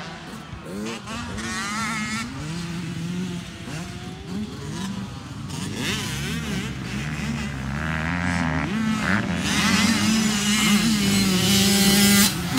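Motocross dirt bike engines revving up and down as the riders work around the track, their pitch rising and falling with each throttle change. The nearest bike gets steadily louder in the second half as it comes closer.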